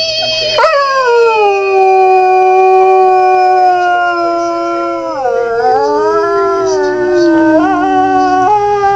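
Irish red and white setter howling ("singing") in one long drawn-out call that slowly falls in pitch, wavering and dipping about five seconds in before rising again.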